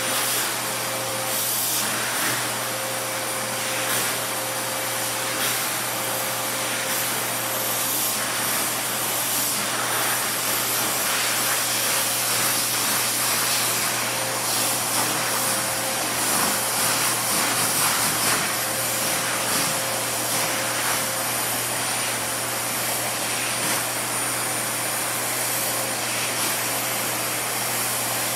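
Canister vacuum cleaner running steadily, with a constant hum and high whine, as its brush nozzle is drawn through a cat's fur.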